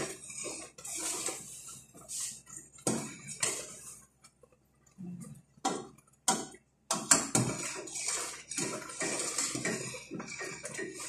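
Metal spoon stirring and scraping a thick pinipig, milk and sugar mixture around a stainless steel pot, in irregular strokes with a lull in the middle.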